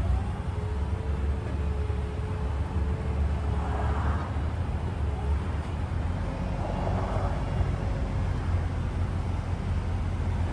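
Vehicle engine running steadily with a low rumble and a faint, thin whine that comes and goes.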